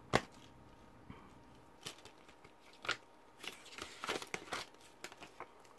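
Plastic packaging of a disc case being handled and opened: crinkling and tearing, with scattered sharp clicks and snaps, the strongest right at the start and a busy cluster a little past the middle.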